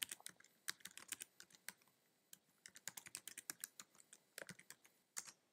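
Faint typing on a computer keyboard: irregular runs of quick keystrokes, stopping about five seconds in.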